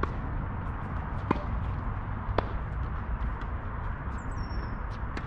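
Tennis ball pocks during a practice set: three sharp strikes roughly a second apart, with lighter ticks between them, over a steady low rumble.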